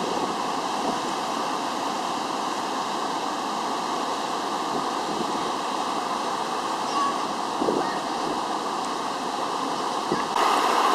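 Steady rushing of a river waterfall in flood, its water about eight feet above normal and churning over the drop. The rush steps up louder just before the end.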